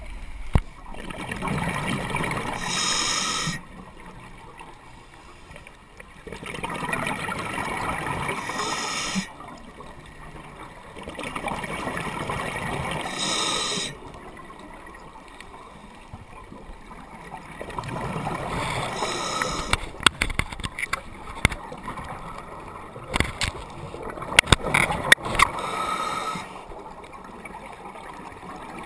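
Scuba diver breathing through a regulator underwater: long bubbling exhalations of about three seconds each, repeating every few seconds with quieter gaps between. In the second half, sharp clicks and knocks sound among the breaths.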